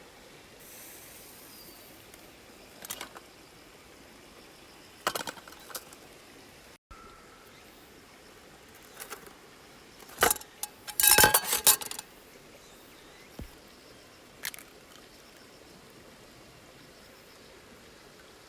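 Scattered clinks and rattles of small hard objects, metal or glass, being handled, in short groups a few seconds apart, with the loudest quick cluster about eleven seconds in. A steady faint outdoor hiss runs beneath.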